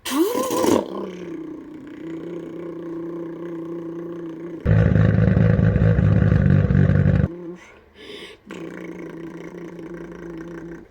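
A boy imitating a Nissan R32 Skyline GT-R engine with his mouth: a quick rising rev, then a steady idling hum, a loud rough buzzing burst of about two and a half seconds in the middle, and the idling hum again.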